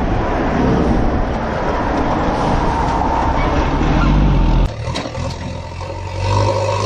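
Truck engine running, loud and busy, with an abrupt break about two-thirds of the way through; a steady low engine hum follows near the end.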